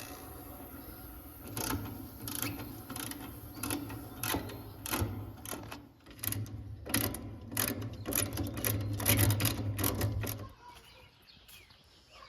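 Vacuum pump running with a steady low hum while metal fittings and tools click and clatter irregularly; the pump cuts off about ten seconds in, as the system is taken off vacuum.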